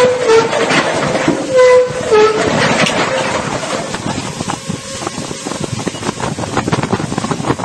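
A horn blowing in a few short blasts over a loud rumbling clatter; after about two and a half seconds the horn stops and the rumble and rattling go on.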